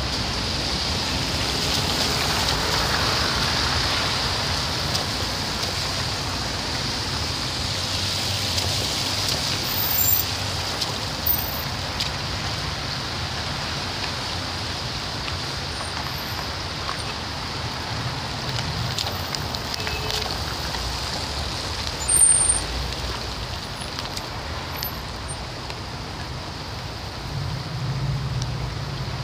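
Slow, congested city traffic on a wet, slushy road: a steady hiss of tyres on wet asphalt over a low rumble of engines. A few short, sharp louder sounds stand out about ten seconds in and again about twenty-two seconds in.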